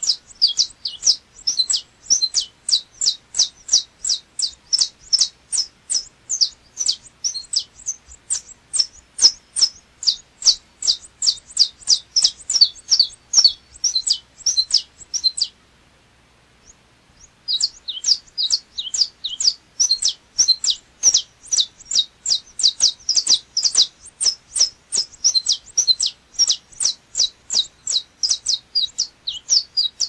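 Saffron finch (canário-da-terra) singing a long string of short, sharp high notes, about four a second, breaking off for about two seconds just past halfway and then carrying on.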